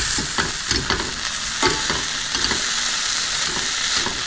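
Butter sizzling in a skillet as crumbled cornbread is stirred and broken up with a metal fork, with scattered clicks and scrapes of the fork against the pan, mostly in the first half.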